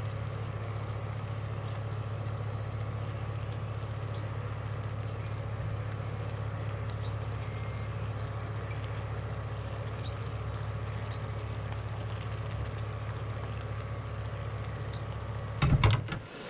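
Steady low electrical hum under a pan of sauce simmering on the stove. Near the end there are a few sharp knocks and clatters, and the hum cuts off.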